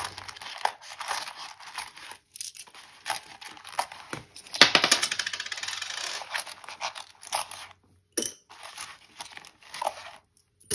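Paper envelopes and banknotes rustling and crinkling as they are handled. About halfway through comes a dense run of small metallic clicks, like loose coins being tipped out and clinking together.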